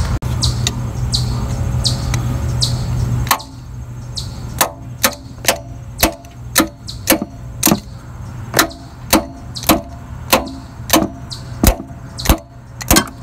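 Steel socket extension tapping on the starter solenoid of a 1999 Jeep Cherokee: about twenty sharp metallic taps, two to three a second, each with a short ring. The tapping is meant to free a starter that gives no click when the key is turned, typical of a stuck solenoid or starter. Before the tapping starts, about three seconds of low hum with a few clicks.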